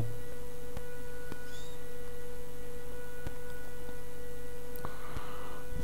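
Steady electrical hum with a clear mid-pitched tone running under it, and a few faint clicks scattered through.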